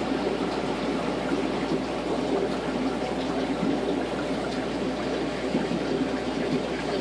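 Steady trickling and bubbling water in a small aquarium, an even rushing with faint scattered ticks.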